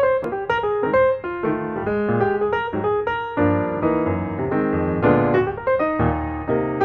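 Background piano music: a melody of short notes over lower accompanying notes.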